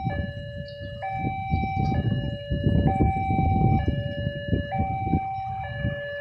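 Railway level crossing warning alarm sounding a two-tone electronic chime, alternating a higher and a lower note about once a second: the signal that a train is approaching and the barriers are down. A low rumble runs underneath, loudest in the middle.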